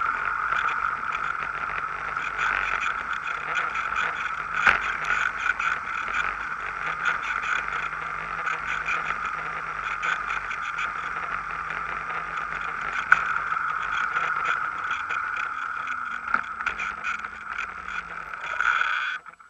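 Bicycle riding along a paved path, heard through a bike-mounted camera: a steady rushing road noise with many small rattles and clicks, and two sharper knocks. The noise cuts off abruptly near the end.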